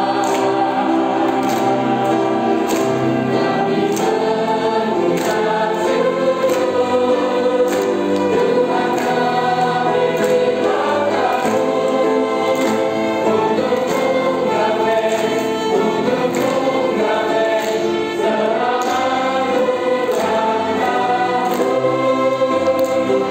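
Congregation singing a hymn together with a small string ensemble of violins and a flute, hands clapping steadily on the beat.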